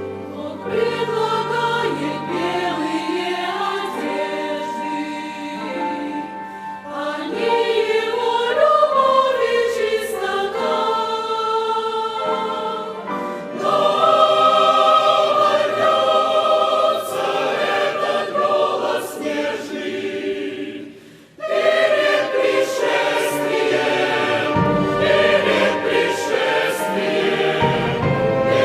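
Church choir singing a hymn in Russian with orchestral accompaniment. About three-quarters of the way through, the sound briefly drops away, then the choir comes back in at full strength.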